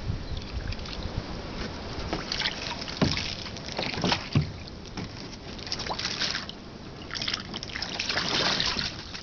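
A duck swimming and dabbling in shallow water in a plastic wading pool, its bill and body splashing and sloshing the water as it feeds. A few sharper splashes come about three and four seconds in, and the densest splashing comes near the end.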